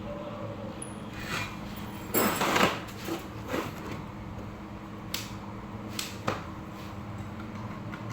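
Scattered handling sounds over a steady low hum: a scraping rustle about two seconds in, the loudest event, then several sharp clicks and knocks.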